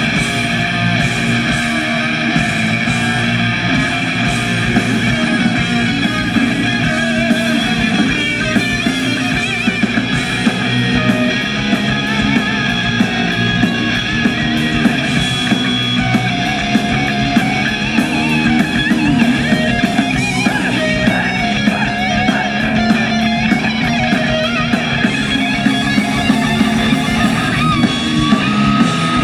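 Heavy metal band playing live: electric guitars, bass guitar and drum kit with fast, steady drumming, loud throughout.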